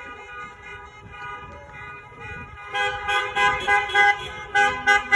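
Car horns honking: several steady horn tones sound together, fainter at first, then loud short repeated blasts from about halfway through.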